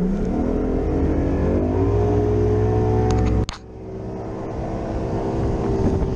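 Bass boat's outboard motor throttling up, its pitch rising over the first two seconds and then running steadily at speed. The sound drops out abruptly about three and a half seconds in and comes back running steadily.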